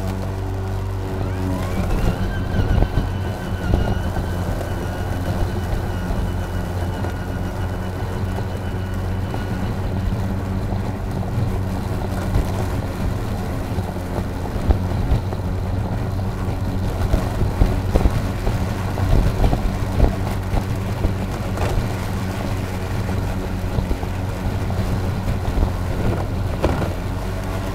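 EGO LM2135SP 56-volt battery self-propelled lawn mower running while cutting grass: a steady electric motor and blade hum. A higher whine rises about two seconds in and holds for several seconds, and scattered short clicks sound throughout.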